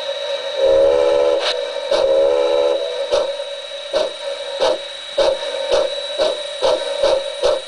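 Model steam locomotive sound sample played through a small speaker in a balsa-wood enclosure: two whistle blasts, then exhaust chuffs starting about three seconds in and gradually speeding up.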